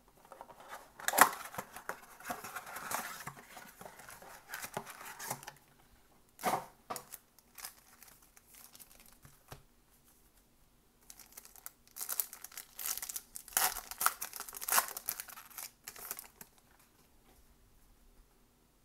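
Trading-card blaster box being torn open with crinkling and tearing, and a single sharp knock about six seconds in. After a quiet spell, a foil card pack is ripped open and crinkles.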